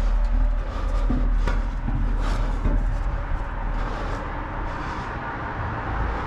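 Climbing a rusty steel ladder with rebar rungs inside a billboard frame: several knocks and scrapes of hands and boots on the metal, over a steady low rumble.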